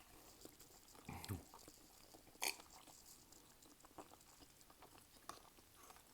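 Faint chewing and soft mouth clicks of someone eating, with a couple of slightly louder smacks about a second in and about two and a half seconds in.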